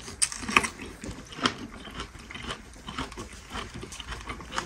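Close-up eating sounds: irregular bites and chewing, with sharp clicks and crunches at uneven intervals.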